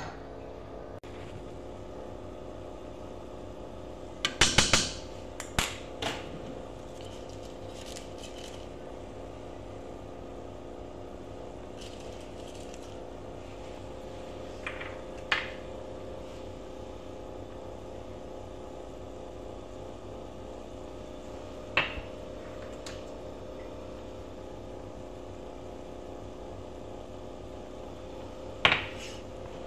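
A pot of soup boiling with a steady hum underneath, and scattered sharp clinks and knocks of a utensil against the pot, a cluster of them about four to six seconds in and single ones later.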